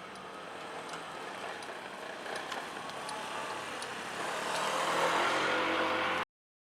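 A passing vehicle's running noise, growing louder about four seconds in.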